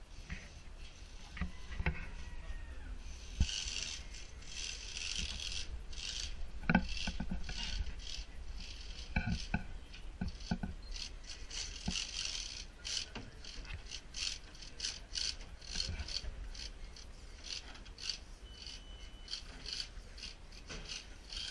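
Multi-axle RC rock crawler climbing a slatted wooden ramp: its tires rub and scrape over the wood slats, and its electric drivetrain whirs in many short, irregular bursts as the throttle is worked.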